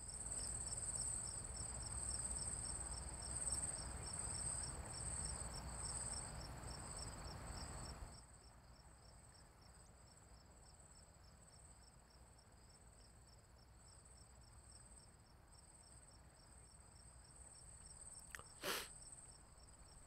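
Crickets chirping steadily, a high pulsing trill, over a low rushing wash that cuts off suddenly about eight seconds in. A short knock comes near the end.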